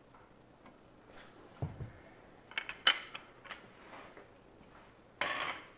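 Steel hand tools clinking and knocking against the engine as a long bar is taken off the front of the motor: a dull knock, then a few sharp metallic clinks, and a short scraping rush near the end.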